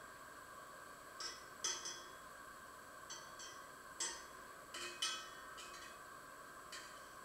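Light clinks and taps of kitchen utensils and dishes being handled at a counter: about ten short knocks at uneven intervals, over a steady faint hum.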